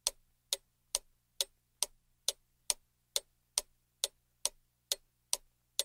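Clock-ticking sound effect, a steady tick a little over twice a second, used as a timer for thinking time while the pupil works out the answer.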